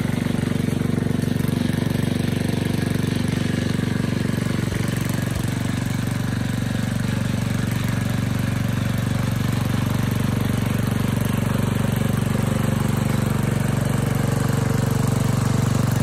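Small single-cylinder petrol engine of a walk-behind rotary tiller running steadily as its tines churn through the soil.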